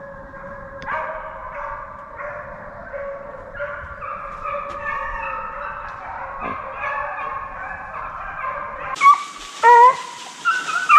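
A pack of deer-hunting hounds baying, many long voices overlapping at different pitches. From about nine seconds in, a closer hound gives a few louder, sharp cries that bend in pitch.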